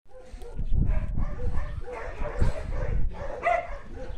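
A dog giving a series of short barks and whines, the clearest about three and a half seconds in, over low rumbling noise.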